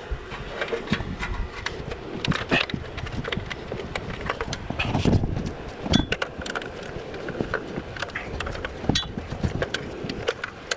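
Irregular clicks, knocks and rustling from hand work with a 10 mm ratcheting wrench on the bolts of an exhaust heat shield.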